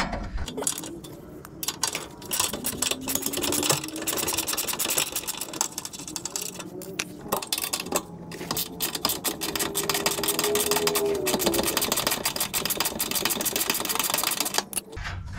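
Cordless power ratchet running an 18 mm bolt: a rapid, continuous clatter of clicks over a small electric motor's whine, which rises in pitch a couple of times as the load changes.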